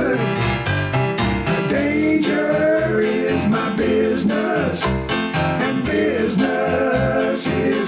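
Music: a voice singing over piano and bass.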